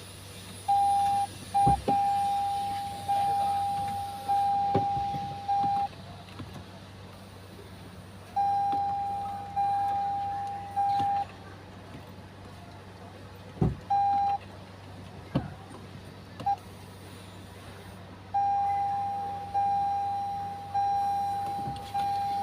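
Hybrid car's dashboard warning chime: a single steady electronic tone repeating in notes about a second long, each fading, in runs broken by pauses, with a couple of sharp clicks. It sounds as the car starts and then shuts off again after a hybrid battery replacement, which the mechanic takes to need programming.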